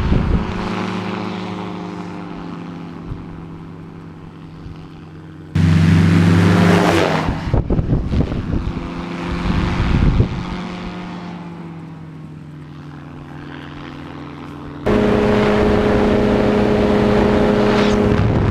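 Ultralight trike's engine and propeller droning steadily as the trike flies away and fades. About five seconds in the sound turns suddenly louder as the trike passes close, its pitch dropping as it goes by, then it fades again. Near the end the engine is heard loud and steady close up from aboard, with wind noise.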